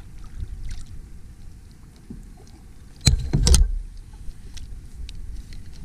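Knocking and handling noise on a kayak over a low, steady rumble; the loudest event is a quick double knock about three seconds in, with faint scattered ticks around it.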